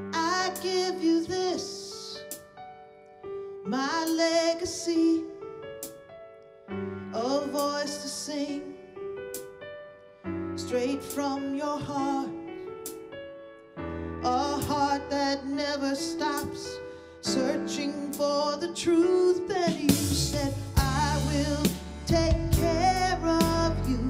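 A woman singing a slow song in phrases of a few seconds each over held instrumental backing. About twenty seconds in, the backing grows fuller, with deep bass notes and percussion coming in.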